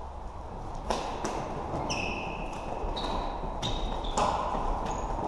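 Floorball play in a sports hall: several short high squeaks of shoes on the hall floor and a few sharp clacks, over a steady hall murmur.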